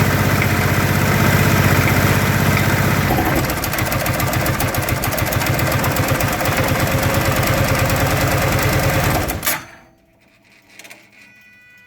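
Kawasaki Teryx FI 4x4 utility vehicle's V-twin engine running with a rapid, even knocking pulse. The owner can't tell whether the knock comes from the engine or the clutch. The running changes about three seconds in, then the engine is switched off about nine and a half seconds in and dies out quickly.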